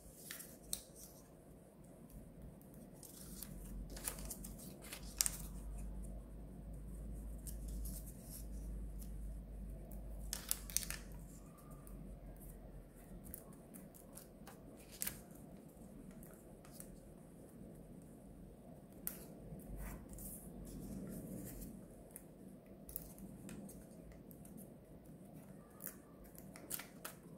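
Colour paper being folded and creased by hand: faint crackles and sharp paper ticks at irregular moments as folds are pressed flat, with the paper rustling and sliding on the table.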